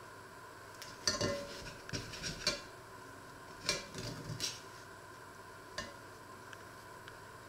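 Long kitchen knife cutting a crusty loaf inside a cast-iron pot: clusters of short crunching scrapes and clinks of the blade against the pot about a second in, around two and a half seconds and around four seconds, then one light tap near six seconds.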